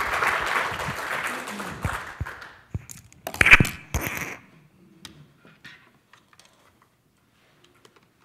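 Audience applauding, dying away about two seconds in. Then a loud clatter of sharp knocks between about three and four seconds in, followed by a few faint clicks.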